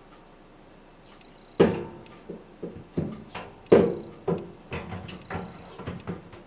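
A series of irregular knocks and clatters, about a dozen, starting about one and a half seconds in: parts of a kitchen exhaust fan being handled and knocked against each other or the housing during cleaning. Two of the knocks, near the start and in the middle, are the loudest.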